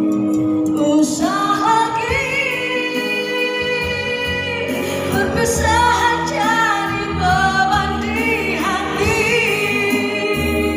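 A woman singing into a handheld microphone over backing music; her voice comes in about a second in and carries long held notes over a steady accompaniment.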